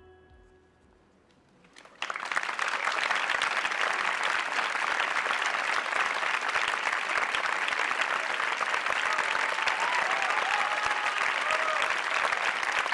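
Theater audience applause that breaks out suddenly about two seconds in, after a faint tail of fading musical ringing, and then goes on steadily with a few voices calling out over it.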